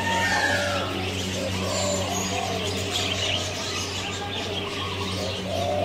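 A flock of small aviary birds chirping and calling in many short, overlapping notes, over a steady low hum.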